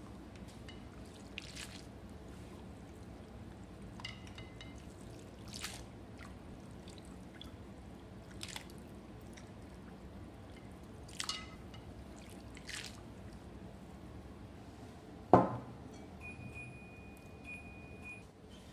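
Kitchen handling sounds: scattered light clicks and clinks of dishes and utensils, with one much louder knock about fifteen seconds in. Near the end comes a thin, steady high tone lasting about two seconds.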